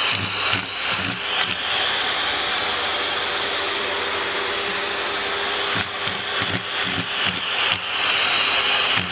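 A small electric motor whirs steadily for about four seconds in the middle, with irregular knocks and clicks before and after it.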